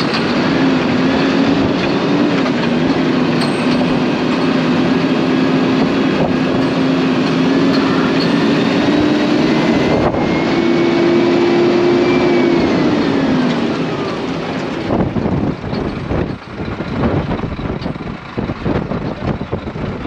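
Engine running with a steady hum; about ten seconds in it revs up in pitch, then drops back and stops about five seconds later. After that, wind gusts on the microphone.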